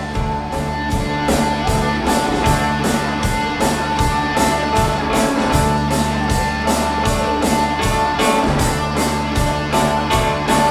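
Live rock band playing an instrumental passage: electric guitars, bass guitar and drums keeping a steady beat, with one long held guitar note over the top and no vocals.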